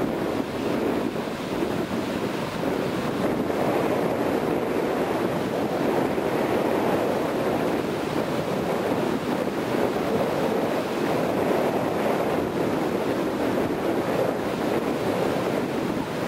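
Ocean surf: waves breaking and whitewater rushing in a steady wash, with wind buffeting the microphone.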